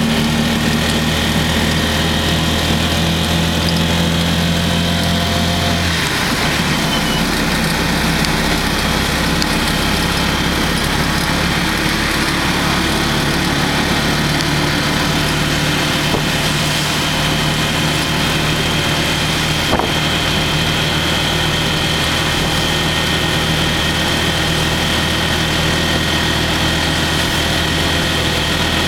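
A small vehicle's engine running as it drives along a wet road in rain, heard from inside the cab. The engine note shifts lower about six seconds in.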